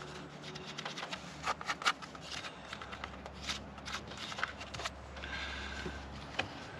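Irregular light clicks, taps and scrapes of hand work at a truck battery's terminals while lithium grease is applied.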